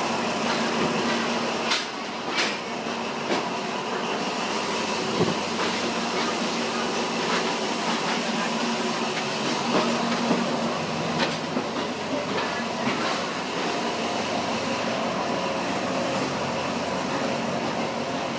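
Train running on the rails: a steady rumble and rattle with scattered short knocks and clacks.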